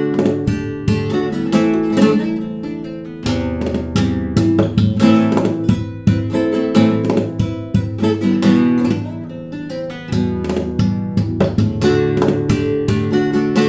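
Acoustic guitar played solo in a flamenco-like style: rapid plucked notes and strums over sustained bass notes.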